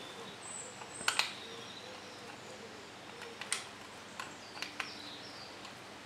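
A screwdriver tightening the screw terminals of an Accenta + alarm remote keypad, giving a few sharp small clicks and ticks as each screw is checked for tightness.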